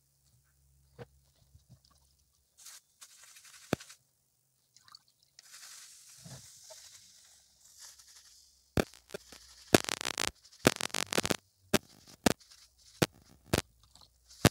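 A cloth scrubbing toothpaste over a hot electric iron's soleplate, with soft hissing rubbing that gives way, about nine seconds in, to a run of sharp crackles and clicks.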